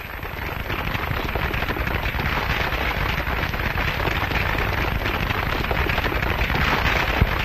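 Steady, dense crackle and hiss with no music, and a single sharp click near the end.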